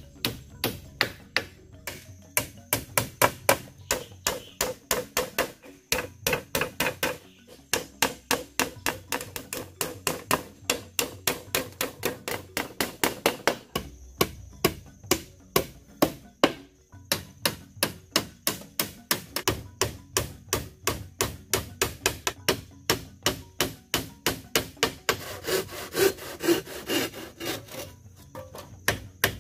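Hammer driving nails into wood with quick, steady blows, about three to four a second, breaking off briefly twice.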